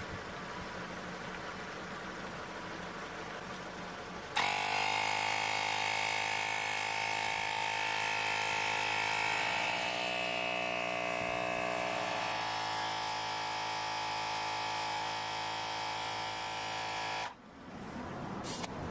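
12-volt mini air compressor pumping up a car tyre. It switches on about four seconds in with a loud, steady buzz, its pitch sagging slightly partway through, and cuts off suddenly near the end. A quieter steady hum comes before it.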